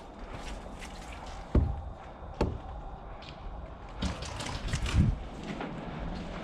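Two sharp knocks with a low thud, a little under a second apart, then a stretch of rustling and dull thumps.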